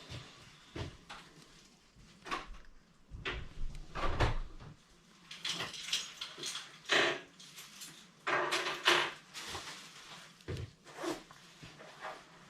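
Irregular rustles, scrapes and small knocks from hands working heavy mono shock leader while tying a uni knot to a swivel. There are a few dull thumps about three to four seconds in, and longer scraping rustles in the middle.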